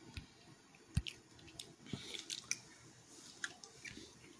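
Mostly quiet, with scattered faint clicks and soft taps; a short knock about a second in is the loudest.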